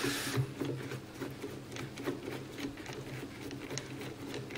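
Screwdriver turning a screw out of a Mosin-Nagant rifle in its stock: small, irregular metal clicks and scrapes, over a low steady hum.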